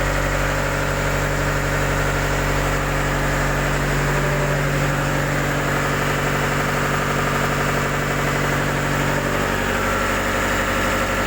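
Yanmar diesel engine running steadily at idle.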